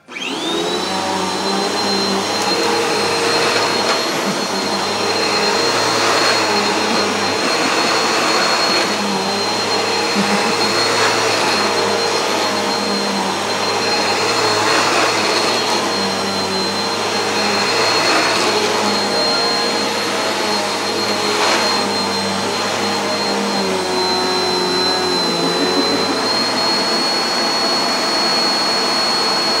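Bissell Rewind vacuum cleaner switched on and running. Its motor whine climbs quickly as it spins up, then holds steady with a swell about every three seconds.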